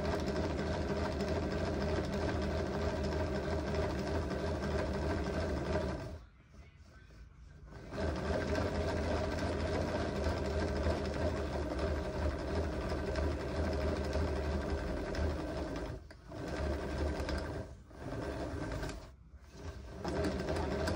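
A small electric motor running steadily in stretches. It stops for about a second and a half around six seconds in, and stops briefly three more times near the end.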